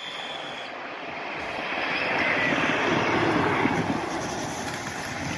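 A gravity kart with no engine rolling past downhill, its tyres rushing on the asphalt. The noise swells to its loudest a little past halfway and eases off toward the end.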